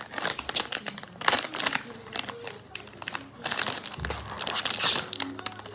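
Crinkling and crackling handling noise: quick, uneven clicks and rustling bursts.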